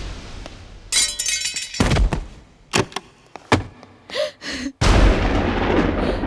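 Film fight sound effects: a thud about a second in, then a few short sharp knocks and blows. Near the end a loud, steady low rumble starts suddenly.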